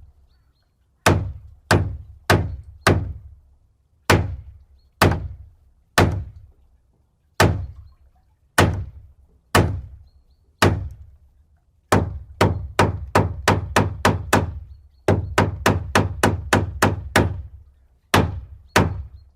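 Hammer blows, each a sharp crack over a dull thud. Single strikes about a second apart, then two quick runs of about four blows a second, and two last strikes.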